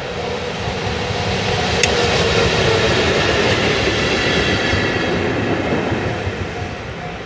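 JR Freight EF64 electric locomotive hauling a dead-in-tow EF65 over a level crossing: the rumble of wheels on rail swells, peaks for a few seconds with a high whine over it, then fades. The crossing bell rings in steady repeated pulses at the start and near the end, drowned out while the locomotives pass.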